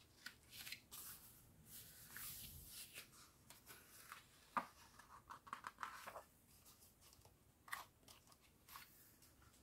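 Faint rustling and flapping of glossy calendar pages being turned by hand, with a few soft paper clicks along the way.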